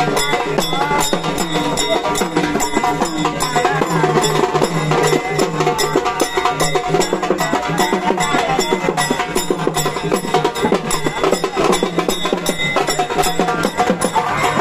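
A band playing: a wavering melody over fast, dense drumming and sharp wood-block-like percussion.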